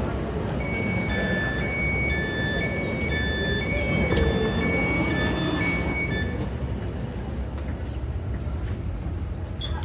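Glasgow Subway train's door warning: a two-tone electronic beep alternating high and low about eight times over six seconds, over the low rumble of the train. A brief hiss comes midway, and the rumble runs on after the beeping stops.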